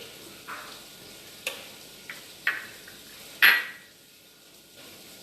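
Spoon and dish taps as mashed potato is spooned into crisp puris: a few short sharp clicks, the loudest about three and a half seconds in.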